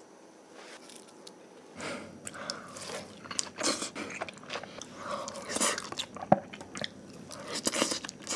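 A person chewing a mouthful of beef nigiri sushi, with short smacking mouth sounds and clicks beginning about two seconds in.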